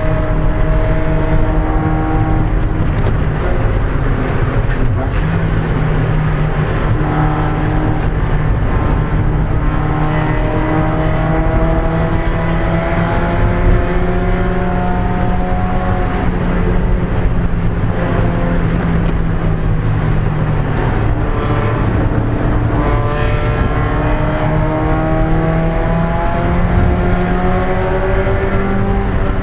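A 1995 Mazda Miata's 1.8-litre four-cylinder engine at race pace. Its pitch climbs steadily under acceleration and falls back at each shift or lift, several times over, above a steady rush of road and wind noise.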